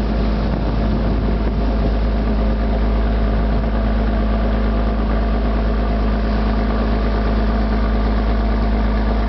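River cruise boat's engine running steadily: an even drone with a few constant tones over a deep hum.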